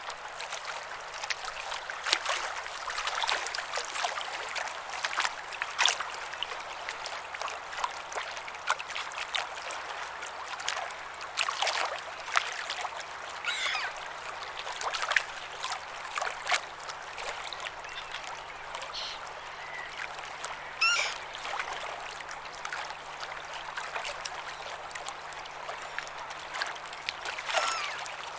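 Sea water lapping and splashing at the shore in a steady wash, with frequent small splashes. A bird calls briefly a few times.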